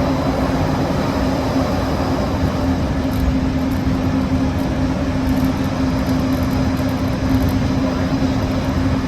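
Disneyland Mark VII monorail running, heard inside the cabin: a steady rumble of the train in motion with a steady low hum over it.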